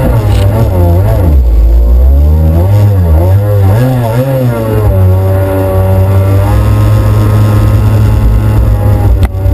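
Stand-up jet ski engine heard close up from the hull, revving up and down through turns, then holding a steady pitch with a small rise partway through. It cuts out for an instant near the end.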